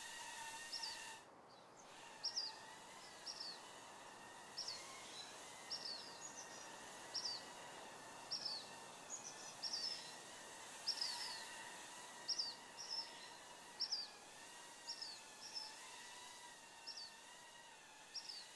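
A small bird chirping over and over, short high descending chirps about once or twice a second, over a faint, slightly wavering hum. The sound briefly drops out about a second in.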